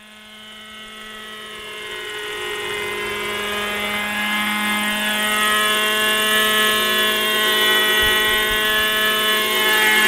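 Hirobo Shuttle radio-controlled model helicopter in flight, its two-stroke glow engine and rotors running at a steady high pitch that shifts slightly. The sound grows steadily louder over the first half as the helicopter comes closer.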